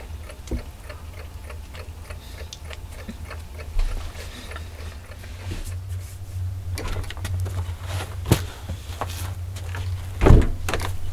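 Mechanical alarm clock ticking steadily, with a heavy thump about ten seconds in.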